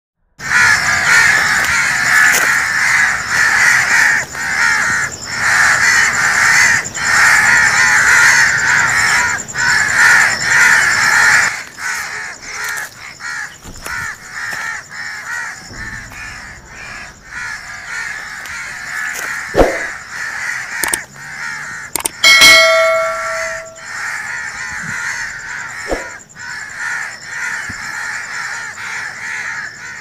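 A flock of birds calling loudly and continuously, thinning out and growing quieter about a third of the way through. A brief ringing tone sounds once, a little past two-thirds of the way in.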